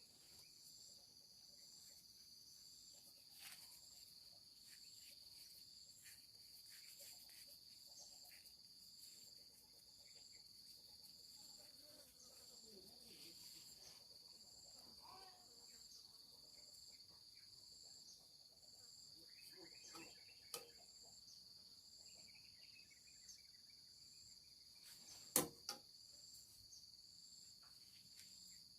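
Insects chirring: a steady high trill with a second, higher call pulsing at an even pace over it. A few faint light knocks, the sharpest about 25 seconds in.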